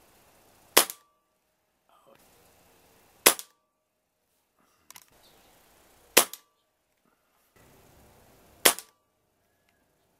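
Benjamin Marauder .177 PCP air rifle firing four shots, about two and a half seconds apart, each a sharp crack followed a split second later by a fainter second report.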